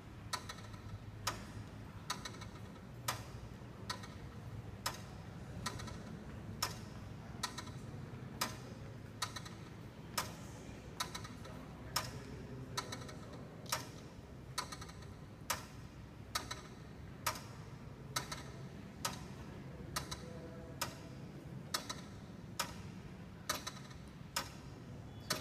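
Antique iron pendulum clock movement running, its escapement ticking steadily about once every nine-tenths of a second as the pendulum swings.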